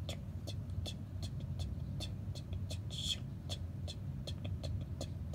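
Steady low rumble of background noise, with scattered faint light clicks from a plastic cassette case being held and shifted in the hand, and a short hiss about three seconds in.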